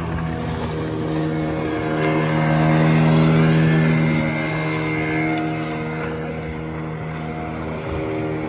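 An engine running at a fairly steady speed, its pitch dipping slightly about a second in and rising again.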